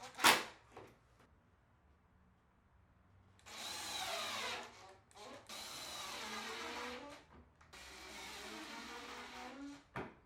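A sharp knock, then a power drill running in three bursts of about one and a half to two seconds each, its pitch wavering and dropping under load.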